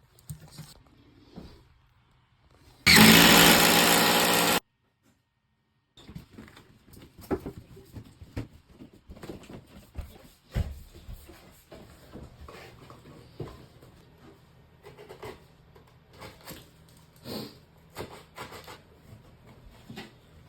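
A small electric motor whirs steadily for nearly two seconds and stops abruptly. After that come scattered light clicks and knocks, as of parts and tools being handled, over a faint low hum.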